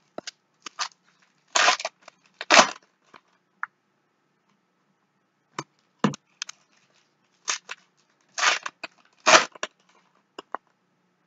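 Foil trading-card pack wrappers crinkling and tearing as packs are opened by hand, in two louder bouts about six seconds apart, with short clicks of cards being handled between.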